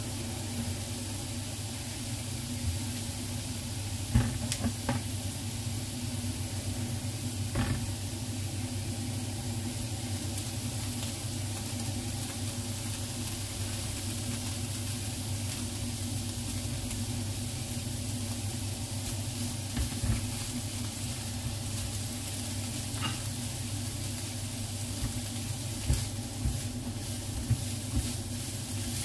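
Diced meat sizzling steadily in a hot nonstick frying pan over a steady low hum. A few sharp knocks come around four to eight seconds in, and a plastic spatula stirs and knocks against the pan near the end.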